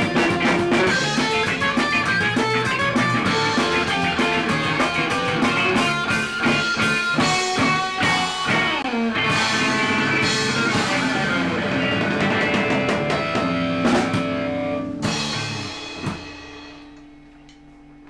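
Ska-punk band rehearsing: electric guitars and a drum kit playing a song, which ends about fifteen seconds in with a last struck chord that rings on and fades.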